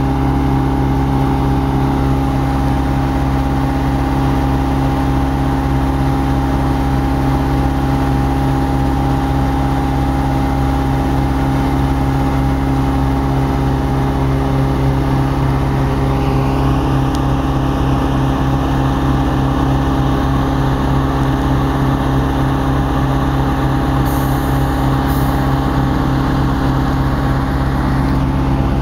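Diesel locomotive engine running steadily, heard close beside the engine compartment. A higher whine rises in about halfway through and then holds.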